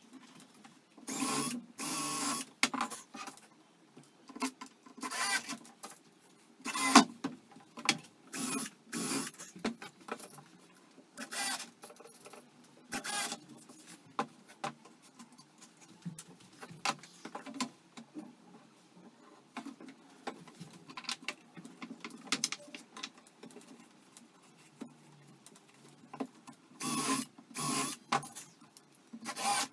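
Cordless drill driving screws through pine pallet slats into the crosspieces, in short bursts of a second or so, repeated many times with pauses between.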